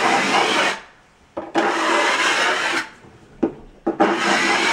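Broad knife scraping across GoBoard backer board, smoothing sealant into the seams like drywall mud, in three long strokes with a short one between.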